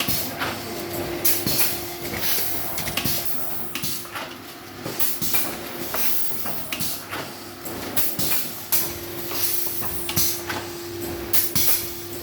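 Packaging-and-filling machine running at speed: a steady motor hum under quick, uneven clacks and bursts of hiss, several a second.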